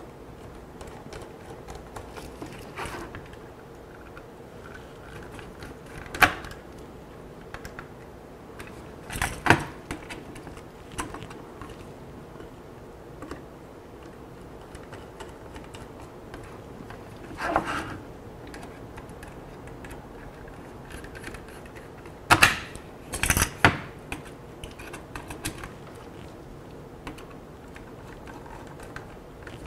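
Plastic stepper-motor cable connectors being handled and fitted onto a stepper driver, giving a handful of short, sharp clicks and knocks with long pauses between them.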